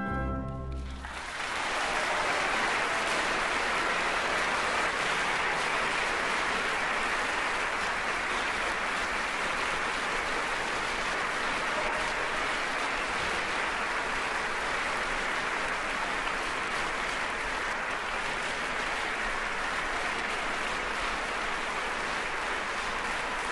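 The orchestra's final chord dies away within the first second. A theatre audience then applauds steadily.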